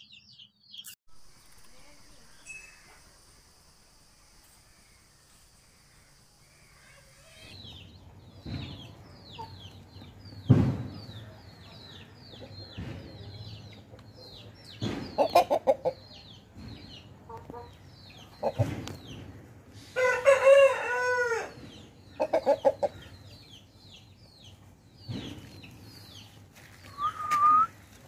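A rooster crows once, about two-thirds of the way through, amid clucking chicken calls and many quick high chirps. The first several seconds hold only a faint high hiss.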